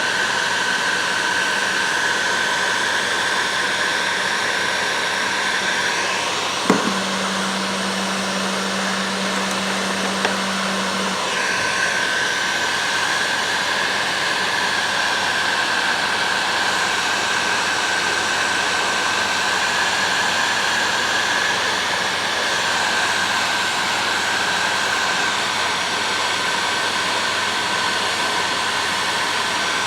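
Electric heat gun blowing steadily with a high whine while shrinking heat shrink tubing onto plier handles. Two sharp clicks come about 7 and 10 seconds in, and the whine turns to a lower hum between them.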